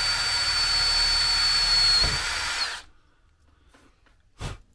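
Handheld power drill running steadily with a high whine as it bores a small bleed hole through an engine thermostat's flange, dipping slightly about two seconds in, then winding down and stopping just under three seconds in. A single short knock follows near the end.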